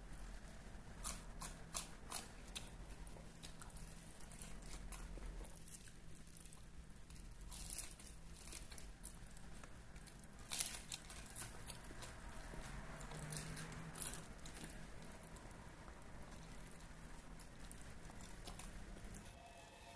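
A person biting and chewing crunchy food, with scattered sharp crunches over a faint steady low hum.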